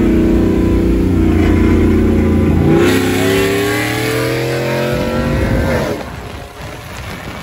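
Chevrolet Silverado pickup's engine in a 40 mph roll race. It runs steadily at first, then about three seconds in it opens up, and its pitch climbs for about three seconds as it accelerates hard. The engine sound drops off about six seconds in, leaving wind noise.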